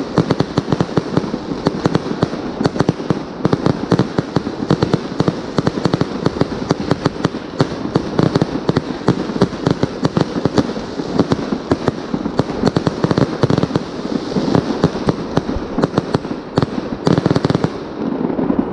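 Aerial fireworks bursting overhead in a continuous barrage: dense, rapid popping and crackling, many reports a second, as white crackling star bursts go off one after another.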